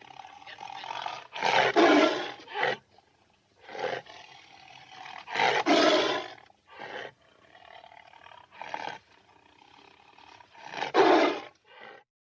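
Tiger roaring: three long, loud roars about four seconds apart, with shorter roars and quieter rumbling between them, stopping just before the end.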